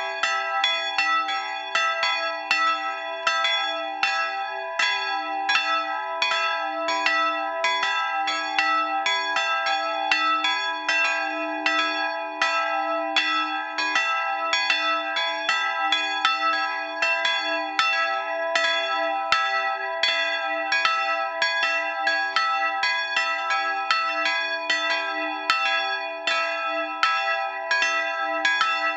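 Two bronze church bells, cast in 1913 by Schilling & Söhne of Apolda and tuned to e'' and g-sharp'', swinging and ringing together in full peal. Their clapper strikes overlap at a steady rate of about two to three a second, each stroke ringing on into the next.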